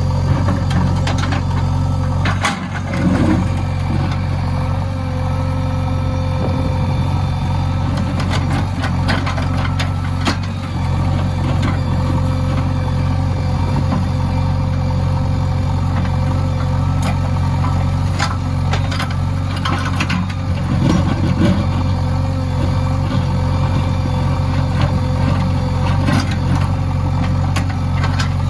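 JCB backhoe loader's diesel engine running steadily, with a steady whine above it and occasional sharp knocks.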